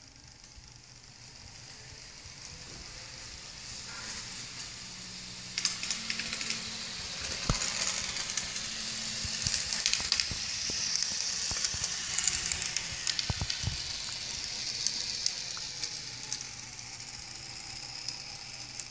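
Model trains running on the layout's track: a hiss of metal wheels on rails with scattered clicks over rail joints and points. It swells as the locomotives pass close by, loudest about ten to twelve seconds in, then eases off.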